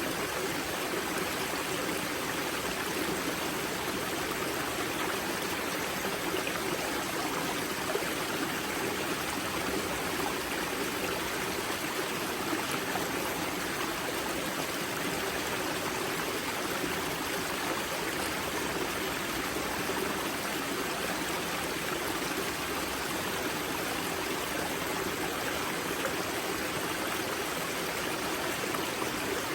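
Spring-fed mountain river flowing and splashing at its wellhead, an even rushing water noise.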